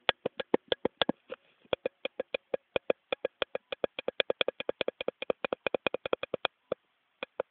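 Cat making quick, rhythmic clicking mouth sounds right at the microphone, about six a second, stopping shortly before the end.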